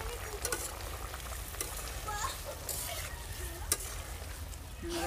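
Fish curry sizzling and bubbling in a large metal pot over a wood fire while a long metal spatula stirs and scrapes through it. Several sharp clinks of the spatula on the pot, the loudest a little before the end.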